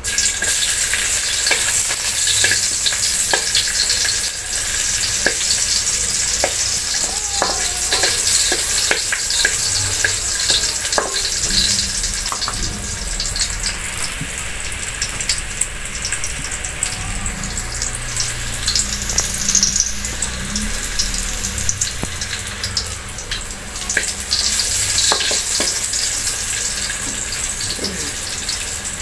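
Chopped garlic sizzling in a little hot oil in a metal wok, the sizzle starting suddenly as it is tipped in, while a wooden spatula stirs it and clicks and scrapes against the pan.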